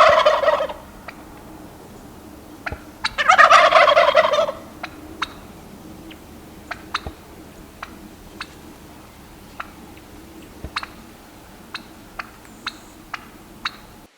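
Turkey gobbling twice, a loud rattling call of about a second each, at the start and about three seconds in. A scatter of short, sharp clucks follows through the rest.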